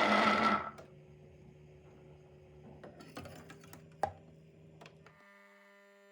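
A small electric motor whirring loudly, which cuts off abruptly under a second in, followed by faint clicks and light knocks of handling, one sharper knock about four seconds in.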